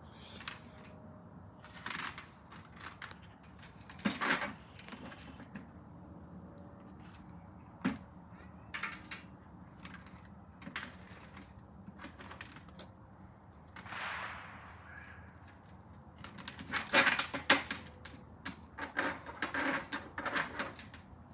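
Scattered knocks, taps and rattles of things being moved and set down, with a burst of quick clattering about two-thirds of the way through.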